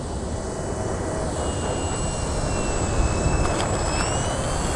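Electric motor and propeller of a 1/7-scale Sopwith Camel RC biplane whining steadily as the model rolls on its main wheels after touchdown, then rising in pitch near the end as the throttle is opened for a touch-and-go. A steady low rumble sits underneath, with a light knock about three seconds in.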